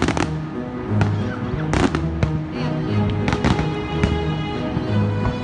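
Fireworks bursting in the air: several sharp bangs, some in quick pairs, spaced irregularly, over music with held notes.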